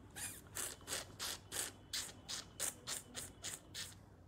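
Handling noise: about a dozen short scratchy rubs, roughly three a second, from a hand or clothing rubbing close to the smartphone's microphone.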